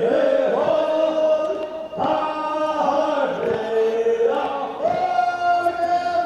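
Voices chanting a Korean funeral bier song (sangyeo sori) in long held notes, in three phrases.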